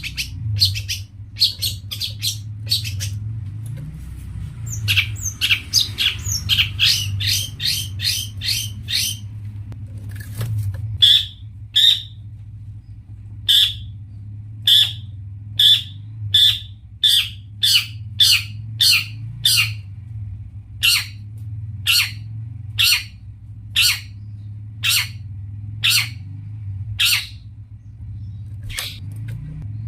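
Long-tailed shrike (cendet) calling in short repeated notes: a quick run of them a few seconds in, then single calls about once a second. A steady low hum lies underneath.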